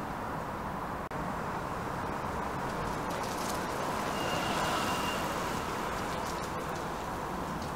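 Steady outdoor road-traffic hum, swelling slightly with a faint high whine as the electric bike rolls close past about four seconds in.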